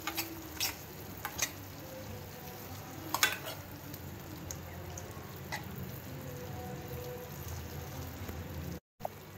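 A metal spoon stirring a thick, creamy vegetable curry in a hot pan, the sauce sizzling steadily underneath, with a few sharp clicks of the spoon against the pan. The sound cuts out briefly near the end.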